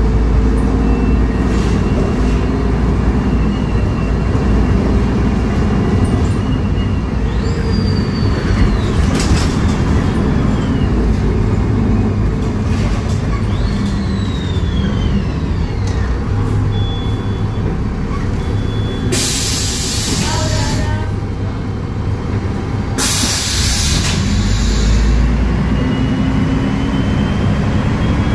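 Mercedes-Benz O500U city bus heard from inside the passenger cabin while driving: its turbocharged six-cylinder OM906LA diesel and Voith Diwa automatic transmission give a steady low rumble. About two-thirds of the way through come two loud hisses of compressed air from the bus's air system, a few seconds apart.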